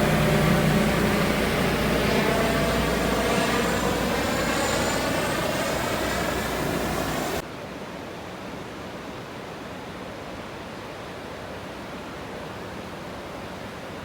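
A motor running steadily under a loud rushing noise, with a sweeping, passing quality for a few seconds. About seven seconds in it cuts off abruptly to a quieter, even hiss.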